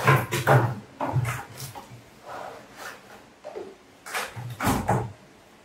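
Cardboard gimbal packaging being handled: the printed sleeve slid off the black inner case with a run of short scraping and rustling sounds, and a heavier thump about four and a half seconds in.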